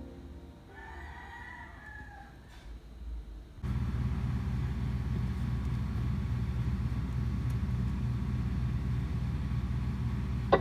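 A rooster crows faintly about a second in. Then, at about three and a half seconds, the sound switches abruptly to a louder steady low rumble that carries on to the end.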